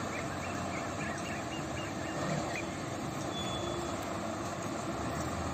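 Diesel engines of several town buses running, a steady rumble as they idle and edge slowly forward.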